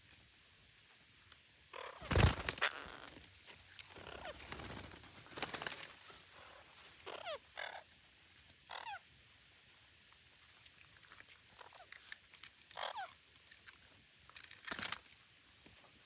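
Parakeets giving a few short, harsh calls that fall in pitch. There is a loud sharp knock about two seconds in, softer scuffling after it, and another sharp sound near the end.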